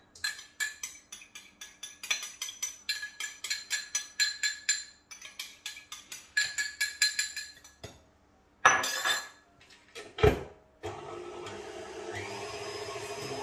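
A utensil beats egg yolks and sugar in a bowl, making rapid, ringing clinks several times a second for about eight seconds. Near the end, after a couple of loud knocks, an electric hand mixer starts and runs steadily as the yolks and sugar are whipped pale.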